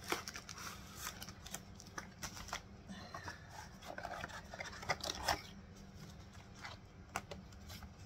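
Packaging being handled: plastic wrapping rustling and crinkling, with scattered light taps and clicks of the cardboard box and pad set on the tabletop. The rustling is busiest about three to five seconds in.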